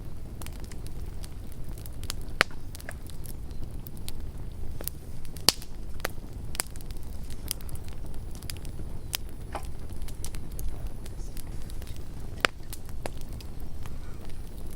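Campfire burning: irregular sharp crackles and pops over a low steady rumble, with a few louder single snaps spread through.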